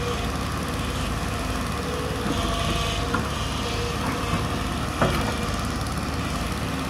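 JCB crawler excavator's diesel engine running steadily while the arm and bucket work, with a few short knocks, the sharpest about five seconds in.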